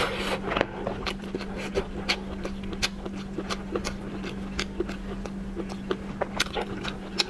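Irregular sharp cracks and snaps of a lobster's shell being broken open and eaten, over a steady low hum.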